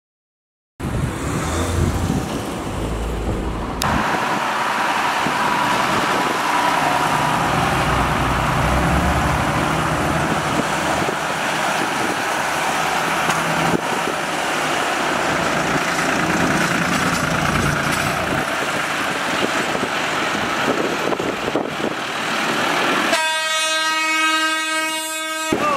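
Diesel engines of a line of farm tractors running, a steady rumble starting about a second in. Near the end a single horn blast sounds for about two and a half seconds.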